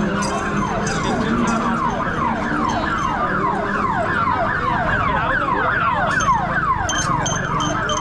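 A siren sounding in quick falling sweeps, about three a second, over steady street noise.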